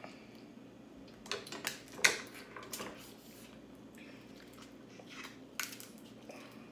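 Crab legs being cracked open by hand and their shells cut with kitchen scissors: scattered sharp cracks and clicks, the loudest about two seconds in.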